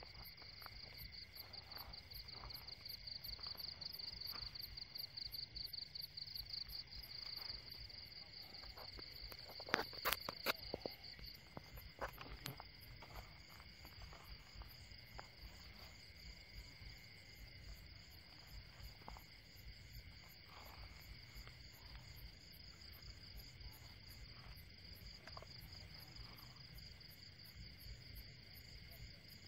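Night insects, crickets, trilling steadily in a high, fast-pulsing chorus, strongest over the first ten seconds or so. A few sharp knocks about ten to twelve seconds in.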